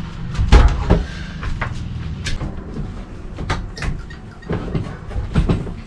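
Irregular knocks and clatter from work on an RV roof fan installation, over a steady low rumble.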